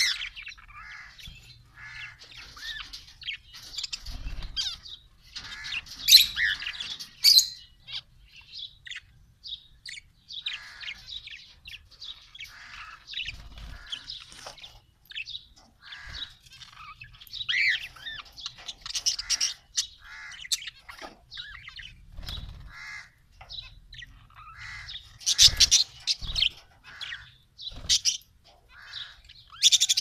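A mixed aviary flock of zebra finches, budgerigars and a cockatiel chirping and calling over one another in a constant stream of short calls. The calls peak loudest about six seconds in and again around twenty-five seconds in.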